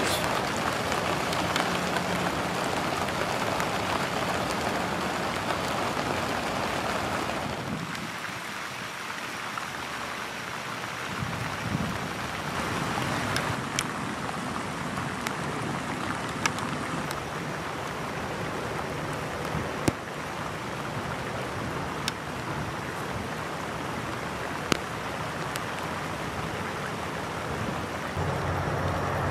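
Rain falling steadily on a lily pond, an even hiss over the water and pads with occasional sharper drop ticks.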